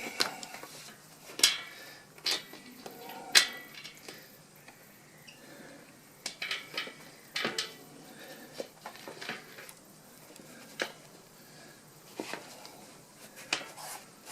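Bicycle wheel and tyre being handled while the tyre is worked onto the rim by hand: irregular sharp clicks and knocks, the loudest in the first few seconds, with softer ones scattered after.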